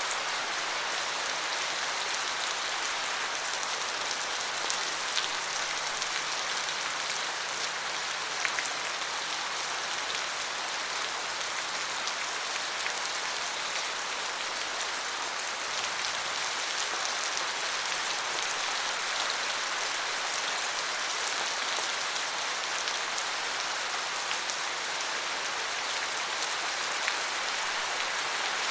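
Steady rain falling, an even hiss with scattered drop ticks. A faint low hum underneath dies away about halfway through.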